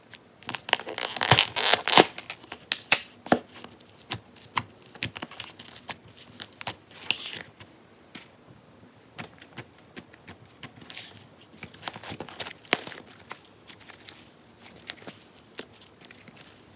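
Fluffy slime being stretched and pulled apart by hand, giving irregular crackling and tearing pops, with a dense flurry of them near the start and another cluster later.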